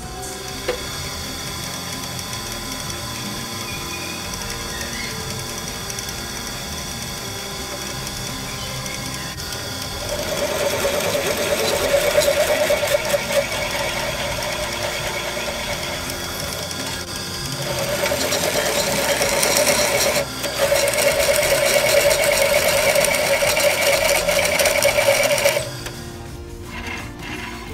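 Drill press motor running, then drilling holes through a steel plate: a steady machine hum, joined about ten seconds in by the louder grinding of the bit cutting the steel. The cutting breaks off briefly twice and stops a couple of seconds before the end.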